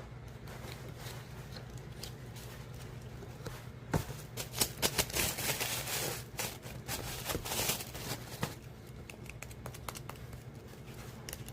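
Hands handling a small Daiso electric fan: a run of clicks and rustling, loudest from about four to eight seconds in, over a steady low hum.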